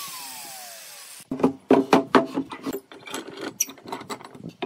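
Angle grinder with a flap sanding disc spinning down after being switched off, its whine falling in pitch over about a second. Then steel pipe clamps being slid and tightened against a glued-up wooden panel: a quick run of sharp clicks and knocks.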